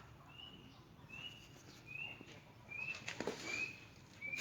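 A bird chirping over and over: short, high notes that each slide up slightly, about one every 0.8 seconds. A few faint knocks come in about three seconds in.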